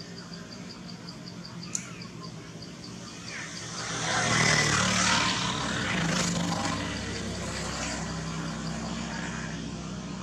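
A motor vehicle passes, swelling about four seconds in and fading away, over a steady insect chirping about four times a second. There is one sharp click near two seconds.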